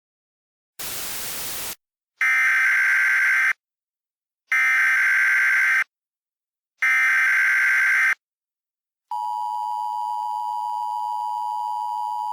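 A short burst of static, then three identical bursts of Emergency Alert System SAME header data tones, a warbling digital screech. About 9 seconds in comes the steady two-tone EAS attention signal, which announces an incoming emergency alert.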